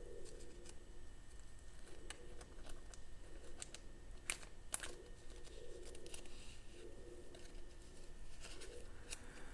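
Faint rustling and small clicks of a thin plastic card sleeve being handled as a trading card is slid into it, with two sharper ticks a little past four seconds in.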